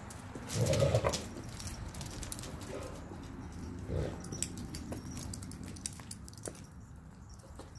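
Dogs making short, low vocal sounds during a pack feeding: the loudest comes just under a second in and a smaller one at about four seconds, amid scattered small clicks.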